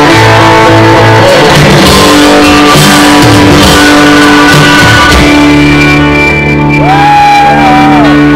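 Live rock band playing guitars, very loud from within the crowd, with a wavering held note near the end.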